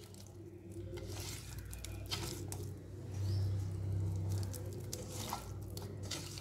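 Wet squishing of a hand mixing masala-coated fish pieces in a nonstick pan, with scattered light clicks as pieces are pressed and turned. A low steady hum sits underneath, a little louder in the middle.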